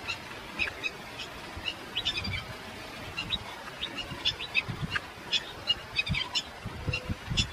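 Small birds chirping in many quick, short high calls, over a low, uneven rumble.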